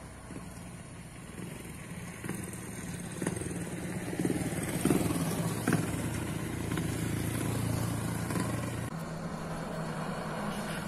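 A motorcycle riding past close by, its engine getting louder and then fading away. About two seconds before the end the sound cuts to a truck's engine running steadily as the truck comes round the bend.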